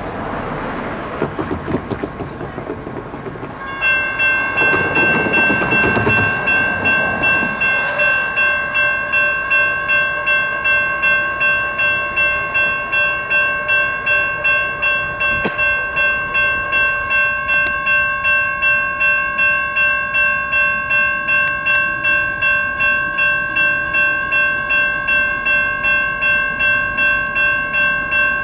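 A road vehicle passes in the first few seconds. About four seconds in, the electronic railroad crossing bells start, ringing evenly at about two strikes a second as the crossing activates and its gates come down.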